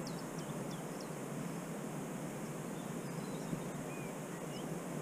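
Steady outdoor rushing noise, with a few short, high, falling bird chirps, most of them in the first half second.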